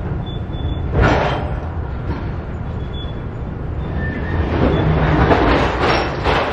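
Rail train of flatcars loaded with stacked rail rolling slowly past: a steady low rumble of steel wheels on the track, with louder noisy surges about a second in and again over the last two seconds or so.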